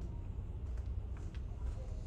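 Steady low rumble of a passenger ferry underway, heard inside a carpeted interior corridor, with a few faint light clicks about halfway through.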